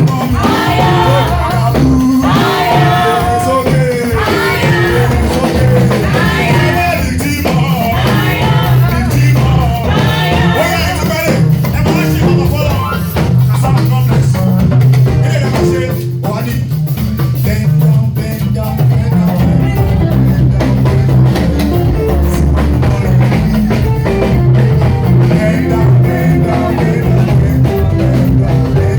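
Live praise band playing with drums, bass and guitar, with singing through the first half that thins out later on.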